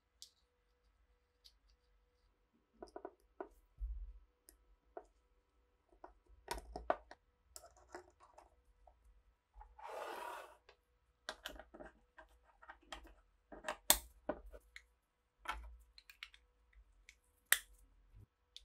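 Small steel parts of an SVT-40 trigger guard being handled and fitted together by gloved hands: scattered clicks and light metal taps, with a short scraping slide across the wooden tabletop about ten seconds in and a few sharper clicks near the end.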